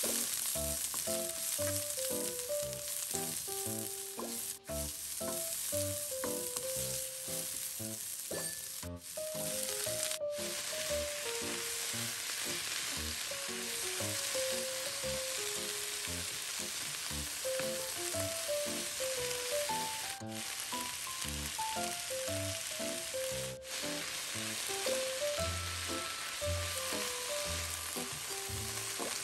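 Sliced cabbage, onion and green onion sizzling steadily in hot oil in a nonstick pan as they are stir-fried with a wooden spatula, over light background music.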